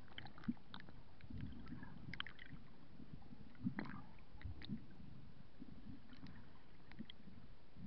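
Muffled underwater sound heard through a camera's waterproof housing: a steady low rumble with scattered small clicks and short high pips of air bubbles, the loudest click about half a second in and another near four seconds.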